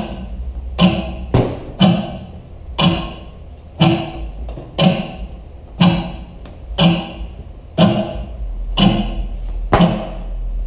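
A steady percussive beat: about one hit a second, each a heavy thud with a bright, echoing edge that dies away before the next.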